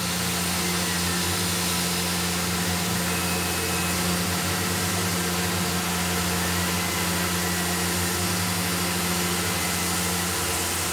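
Tormach CNC mill spindle running and a small end mill contouring an aluminium gear profile: a steady hum with a few held tones under an even hiss from the coolant nozzle. The cut runs smoothly without chatter, which the machinist calls very solid.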